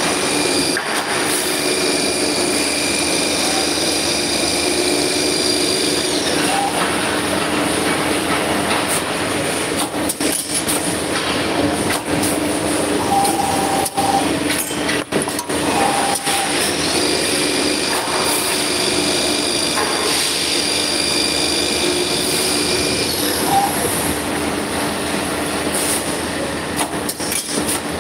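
Copper tube cutting and end-forming machine running: a steady mechanical hum with a high whine that sets in twice, for about six seconds each time, and a few sharp clicks in the middle and near the end.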